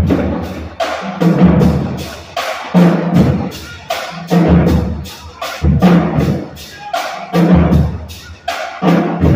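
Music with a steady, heavy drum beat, starting suddenly and loud.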